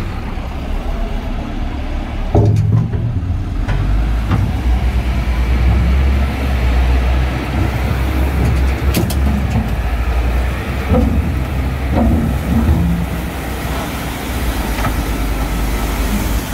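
Caterpillar IT28B wheel loader's diesel engine working under load, shoving a dead wheel loader whose brakes are locked, a steady low rumble with a few sharp knocks.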